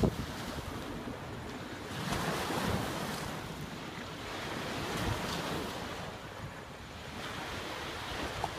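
Wind blowing over the microphone, with small waves washing against a rocky shoreline; the noise swells a little about two seconds in and again about five seconds in.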